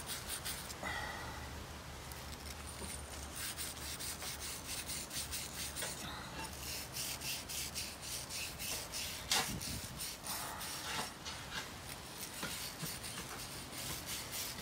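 Rapid back-and-forth scraping and rubbing, about four or five strokes a second with short breaks, as dirt is cleaned out of a Honda GCV190 carburetor part by hand.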